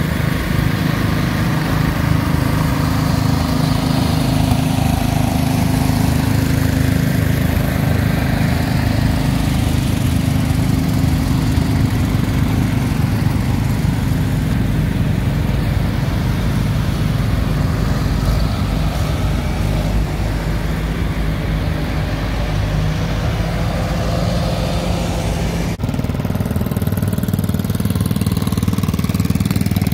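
Small tractor engines running steadily as a line of little antique and garden tractors drives past. The engine sound changes abruptly near the end as another tractor takes over.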